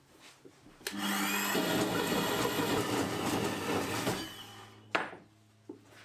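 Portable metal-cutting band saw switched on with a click about a second in, whining up to speed and running steadily for about three seconds, then winding down. A sharp knock comes near the end.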